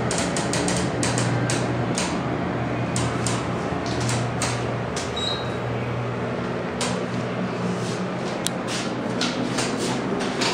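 Richmond hydraulic elevator car descending with a steady hum inside the cab. The hum drops off about five seconds in as the car levels at the floor. Scattered clicks and knocks follow as the doors begin to open near the end.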